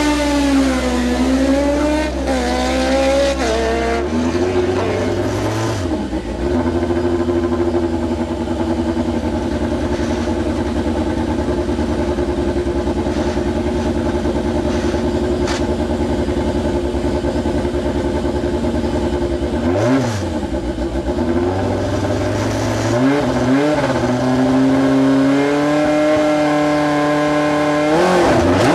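BMW S14 2.5-litre four-cylinder engine of an Osella PA9/90 race prototype heard from the cockpit, waiting at the start line: revving at first, then idling steadily for a long stretch. About two-thirds through it is blipped several times, then held at higher revs, ready for the launch, which comes right at the end.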